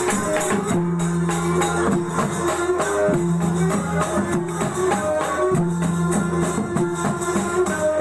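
Sasak cilokak ensemble playing: a gambus lute and a violin over steady, jingling percussion, with held low notes repeating about every second or two.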